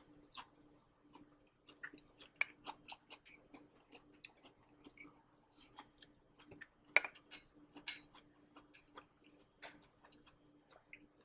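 Close-miked chewing of dry-fried green beans, picked up by a clip-on shirt microphone: irregular soft mouth clicks and crunches. A faint steady hum runs underneath.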